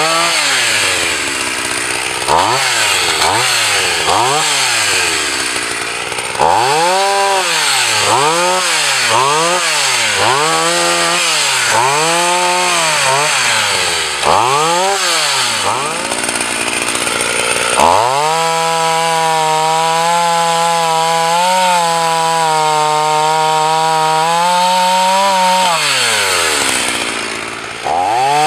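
Husqvarna 240 two-stroke chainsaw cutting a log. The engine revs up and down in repeated pulses about once a second, then is held at high revs for about eight seconds before dropping back.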